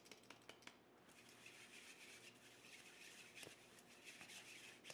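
Faint scratchy rustling of a round stainless-steel drum sieve shaken by hand as it sifts flour and baking powder, with a few light taps in the first second.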